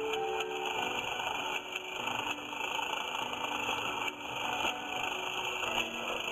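Several battery-powered Plarail toy train motors whirring with a steady high-pitched buzz, with a few faint knocks as the plastic engines and cars tip off the end of the track onto carpet.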